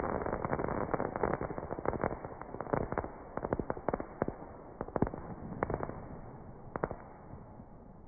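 Fireworks going off: a rapid, irregular string of sharp cracks and pops over a rumbling hiss, both thinning out and fading toward the end.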